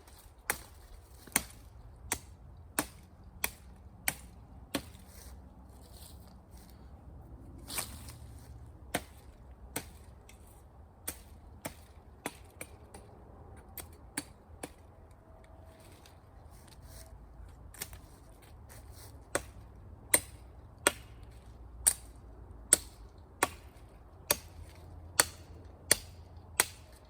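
Machete chopping into a small tree trunk: sharp, repeated strikes about one every two-thirds of a second, thinning out in the middle and coming quickly again over the last seven seconds.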